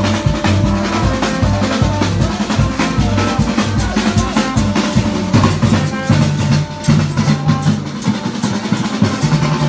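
A marching street band playing: a barrel hand drum and bass drums beating a fast, busy rhythm under sustained pitched notes.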